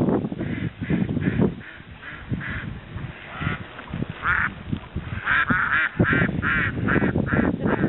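Geese honking over and over as they crowd in to be fed, the calls coming thicker in the second half, over a low rumbling noise.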